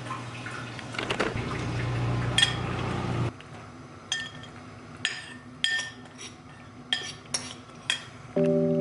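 Small metal parts clinking against each other and a hard surface as they are handled: about seven sharp, ringing clinks spread over the second half, after a steadier stretch of noise with a low hum.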